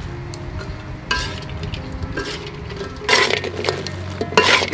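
Metal spatula stirring and tossing sugar-coated fried banana chips in a steel wok, with light clinks of metal on metal. Two louder bursts of scraping and rattling come near the end as the chips are turned over.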